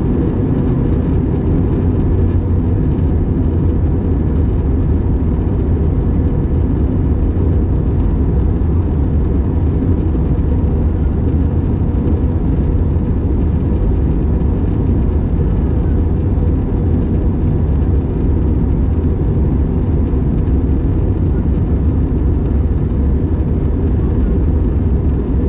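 Steady airliner cabin noise inside an Airbus A321neo during the descent: a constant rumble of engines and airflow, heavy in the low end and unchanging throughout.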